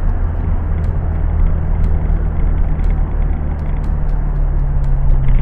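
Car engine and tyre noise heard from inside the cabin while driving: a steady low hum over road rumble, the engine note dropping slightly in pitch about four seconds in.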